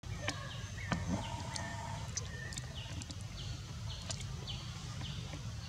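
Forest ambience: short, high chirping calls repeat several times at irregular intervals over a steady low rumble, with a few faint clicks.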